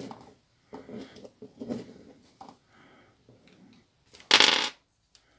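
Hand tool handling at a workbench: light clicks and rustles as a precision screwdriver and its small bits are picked up and handled, then one loud, sharp clatter lasting about half a second, about four seconds in.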